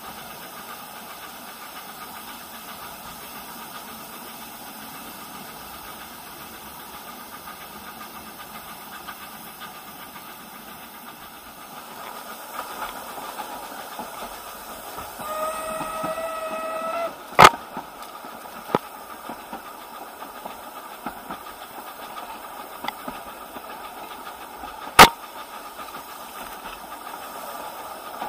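Narrow-gauge steam locomotive hissing steadily. About halfway through, its whistle sounds once for under two seconds. Two sharp knocks follow, one just after the whistle and one about seven seconds later.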